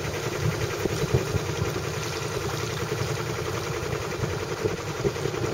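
A sailboat's auxiliary engine running steadily as the boat motors along.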